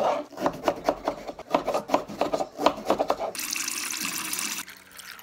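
Knife cutting red potatoes into thick fries on a cutting board, a quick series of chops. About three seconds in, this gives way to water running from a tap into a glass measuring cup for about a second and a half, then stopping.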